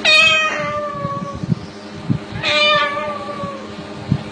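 White cockatoo imitating a cat's meow: two drawn-out meows that fall in pitch, one at the start and one about halfway through.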